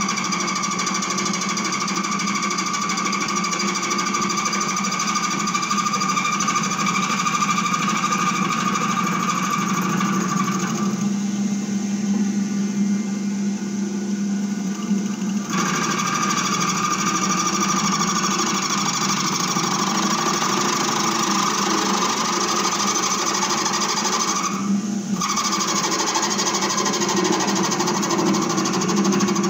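Metal Master MML 2870 MV benchtop lathe running with a steady whine while turning a stainless steel tube. The higher part of the whine drops out for a few seconds about a third of the way through, and again briefly near the end.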